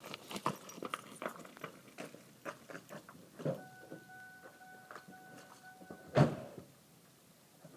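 Irregular crunching footsteps on gravel. Then, for about two and a half seconds, a steady two-note electronic warning tone sounds from a car with its door open. About six seconds in, the car door shuts with a single loud thud.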